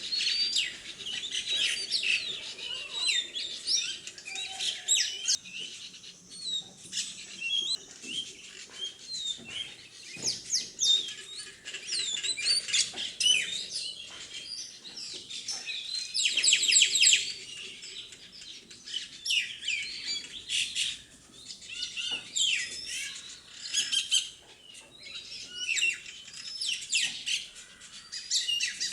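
Parrots chirping and calling: many short, high chirps overlapping, with a loud, rapid flurry about halfway through.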